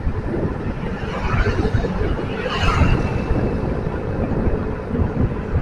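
Wind buffeting the microphone of a camera on a moving bike, over the steady rumble of motorcycle traffic.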